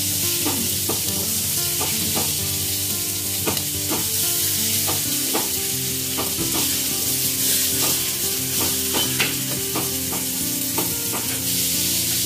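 Breaded chicken breasts sizzling as they fry in olive oil in a nonstick pan, a steady hiss with scattered sharp clicks and pops.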